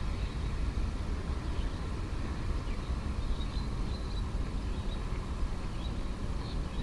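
Wind buffeting an action camera's built-in microphone, a steady low rumble, with a few faint high chirps.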